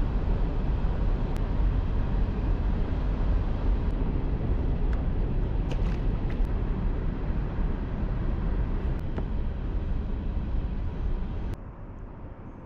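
Steady low rumbling noise buffeting the GoPro's microphone, with a few faint clicks; it drops away sharply near the end to a quieter hiss.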